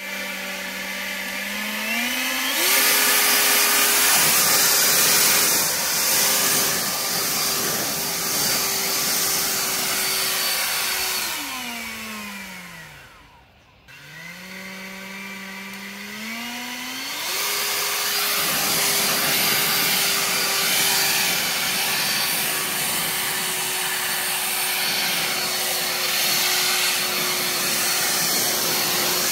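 EGO 650 CFM cordless leaf blower running on a retrofitted cheap BLDC motor controller: its fan whine steps up from low to high speed about two seconds in and holds. Around the middle it winds down nearly to a stop, then spins back up in two steps to high speed and runs steadily. The repaired blower runs fine.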